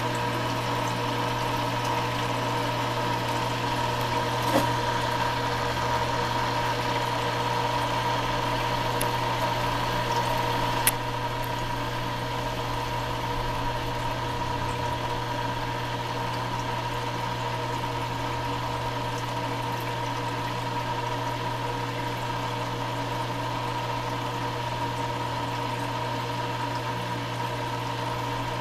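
Reef aquarium sump running: a steady electric hum from the pump with water moving through it. Two small clicks come through, the second about eleven seconds in, after which the hum is slightly quieter.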